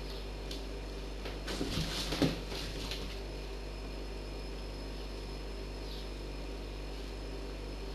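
Crumpled clear plastic packaging rustling and crinkling for a couple of seconds as a cat pushes through it, with one sharp knock against the cardboard box about two seconds in. Then only a steady low room hum.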